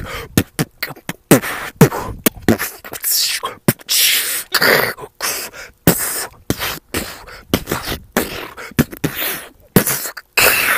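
A man beatboxing into his cupped hand: a quick, uneven run of sharp mouth-made percussive hits and low kick-drum thumps, broken by a few longer hissing snare sounds.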